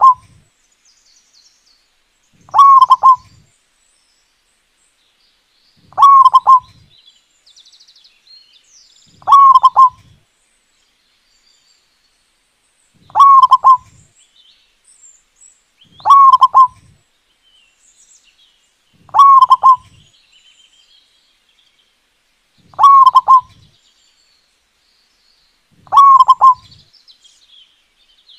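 Zebra dove (perkutut) singing: short bursts of cooing notes, each about half a second long, repeated at a steady pace about every three seconds.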